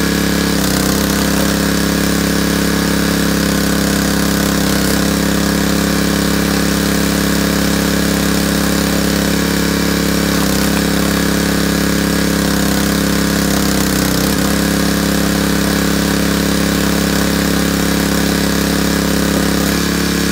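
Small gas engine of a hydraulic log splitter running steadily, its note dipping briefly a few times as the ram is worked through logs under load.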